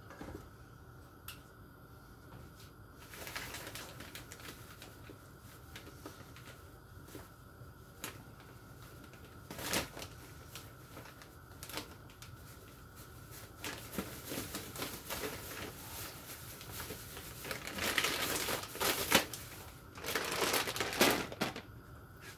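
Kitchen work sounds: scattered clicks and light clatter, with bursts of crackling, rustling noise that are loudest in the last few seconds. A faint steady high hum runs underneath.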